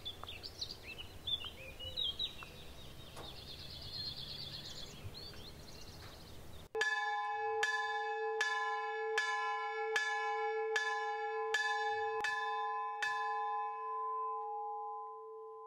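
Birds chirping outdoors, then after an abrupt cut, a single church bell struck nine times, a little under a second apart. After the last stroke its tone rings on and slowly fades.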